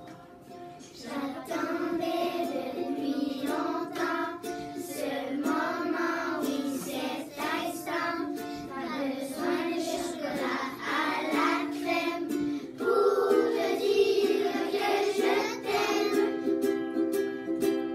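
A class of young children singing a song in French in unison, accompanied by a strummed acoustic guitar. The guitar plays alone for about the first second before the voices come in.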